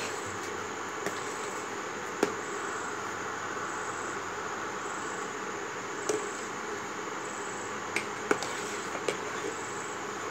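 A spoon stirring thick milk and rice in a steel pot, clinking against the pot a handful of times, over a steady hiss.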